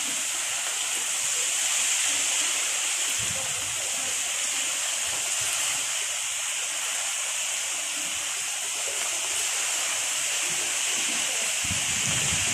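Heavy rain falling in a downpour, a steady dense hiss. A low rumble joins near the end.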